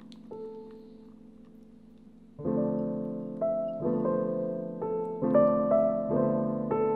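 Background piano music: a quiet held chord fades away, then about two and a half seconds in a louder run of piano notes begins, a new note or chord about every half second.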